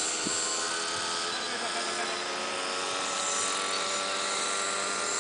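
Electric RC F6F Hellcat model in flight: its 1000Kv brushless motor and 9-inch three-blade propeller whine steadily, the pitch holding nearly level.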